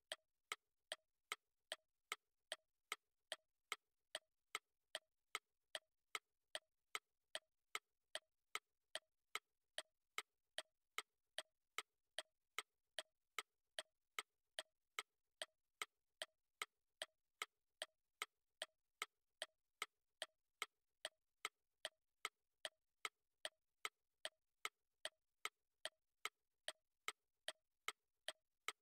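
Clock ticking, an even tick-tock of about two sharp clicks a second, with the tick and the tock alternating slightly in pitch.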